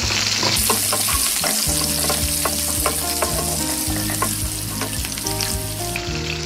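Green chillies and cumin seeds sizzling in hot oil in a non-stick pan, with a steady hiss. A wooden slotted spatula stirs them, making frequent short clicks and scrapes against the pan.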